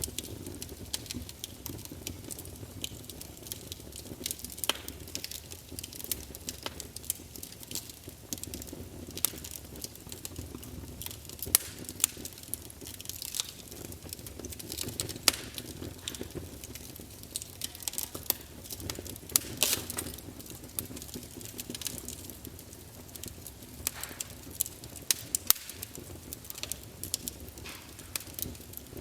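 Campfire burning: a steady low rumble of flames with frequent irregular crackles and sharp pops of burning wood.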